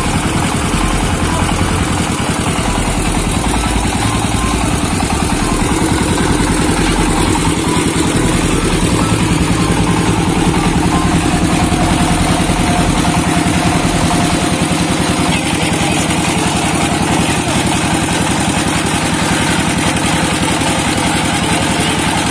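Shallow-machine single-cylinder diesel engine running steadily, driving a mustard oil expeller.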